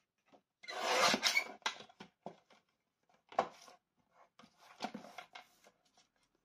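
Sheet of designer paper handled on a paper trimmer: several bursts of rustling and rubbing with a few light clicks, the loudest about a second in.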